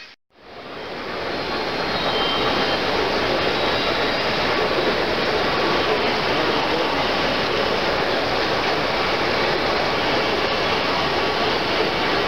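A brief dropout to silence at a cut, then the steady, even din of a large, crowded exhibition hall with no distinct voices.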